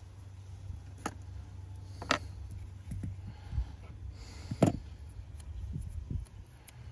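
A few light clicks and taps of small repair tools on the opened iPhone XR's parts, the sharpest about two-thirds of the way in, over a steady low hum.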